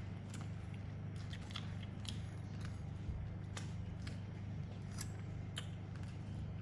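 Chewing and biting into roast chicken: wet, irregular crunchy clicks, over a steady low hum.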